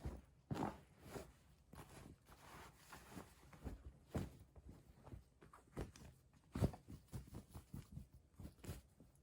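Faint handling noise: irregular soft clicks and rustles, a few of them louder.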